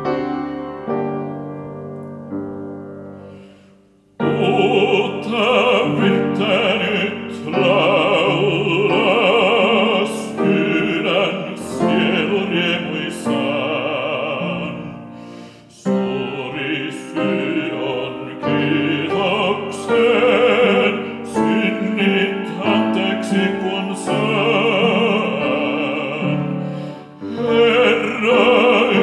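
A piano introduction dies away, and about four seconds in a baritone voice begins singing in Finnish in a classical style with vibrato, accompanied by piano. There are short breaks between phrases.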